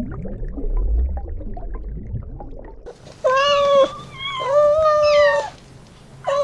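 A cat meowing three times in the second half, the middle meow the longest, after a stretch of low rumbling background noise with small ticks.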